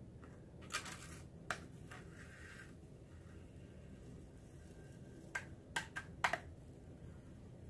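A few short, light clicks and crackles from a hot knife being worked through pink extruded polystyrene foam board, in two small clusters: several in the first two seconds and four more about five to six seconds in.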